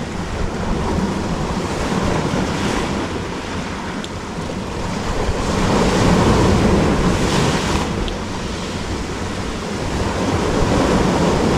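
Sea surf washing on the shore, swelling and easing every few seconds, with wind buffeting the microphone.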